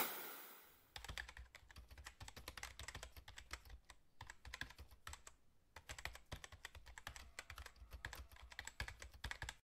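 Typing sound effect: rapid, irregular key clicks with a few short pauses, starting about a second in. At the very start a brief loud hit fades away over the first second.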